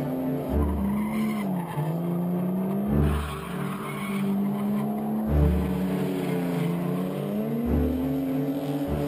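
Toyota Supra's 2JZ-GTE twin-turbo straight-six revving hard through a drift, with tyres squealing; the engine note dips and climbs several times. A deep low pulse comes about every two and a half seconds.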